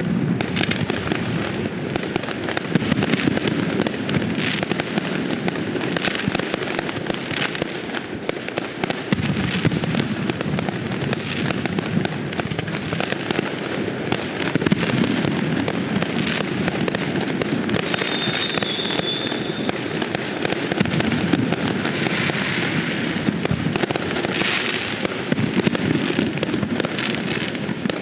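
Aerial fireworks going off without a break: a dense stream of overlapping crackles and pops over a steady low rumble of shell bursts. A short high whistle sounds about two-thirds of the way through.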